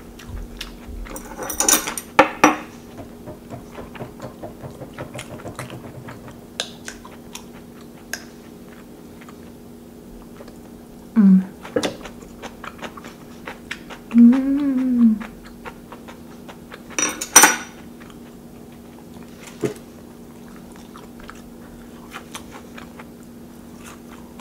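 Close-up eating sounds: chewing, with chopsticks and utensils clicking against paper cups and a glass kimchi jar. The loudest moments are two sharp clatters, one about two seconds in and one about two-thirds of the way through. In the middle come two short hummed 'mm' sounds from the eater.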